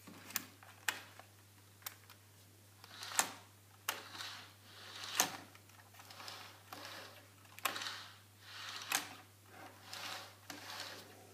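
Jouef X 72500 model railcar being pushed back and forth by hand on model track: its wheels roll along the rails in short swells of rolling noise, broken by sharp plastic clicks and knocks, about eight of them.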